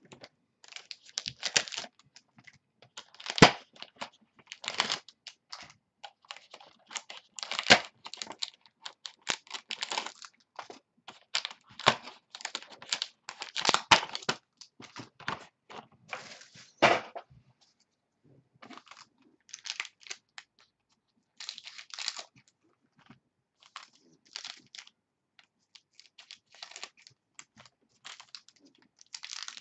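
Plastic shrink wrap and card-pack wrappers being torn and crinkled as a box of football trading cards is opened: irregular crackling and rustling, busy for the first half, then sparser and quieter after about 17 seconds.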